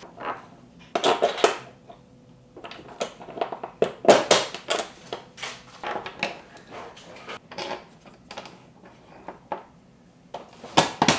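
Small metal and plastic hardware being handled and fitted together: long bolts with washers, spacers and plastic retainer clips. Irregular clicks, knocks and rattles, with louder clusters about a second in, around four seconds and near the end.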